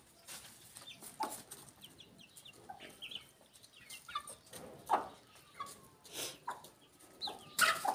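Domestic hens clucking softly and giving short calls while feeding, with scattered light clicks and a sharp knock near the end.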